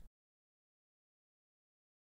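Silence: the sound track drops out to nothing.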